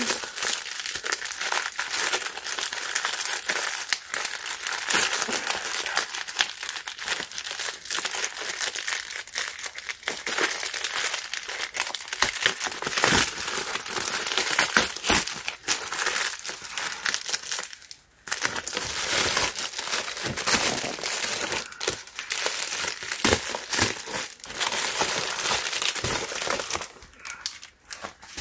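Plastic bubble mailer crinkling and rustling as hands tear it open and pull out the box inside, with a brief pause about two-thirds of the way through.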